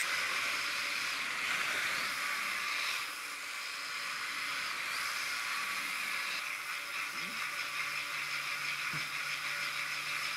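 Micro 1/24 RC buggy's 5000 kV 130-class electric motor and gears running as it drives over a concrete floor: a steady hissing whirr with a faint high whine that comes and goes.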